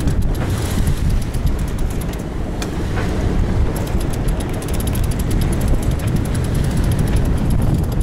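Strong wind buffeting the microphone on a sailing yacht under way in a fresh breeze, with water rushing past the hull: a steady, loud rumble.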